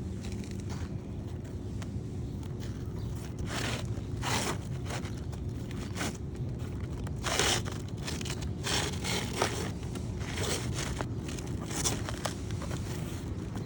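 Asphalt roof shingles being scraped and shuffled by hand and tool during a shingle repair: a series of short, irregular scrapes, with a steady low rumble underneath.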